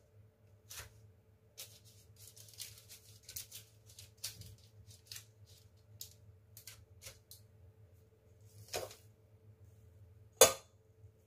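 Hands shaping chocolate cookie dough and setting it on a parchment-lined baking tray: a run of soft paper crinkles and light taps, then a sharper knock near the end, the loudest sound. A faint steady hum runs underneath.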